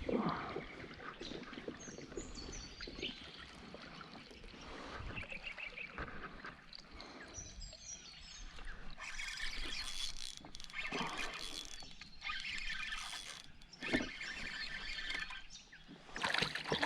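Water sloshing around a fishing kayak, with a few sharp knocks on the hull and birds chirping.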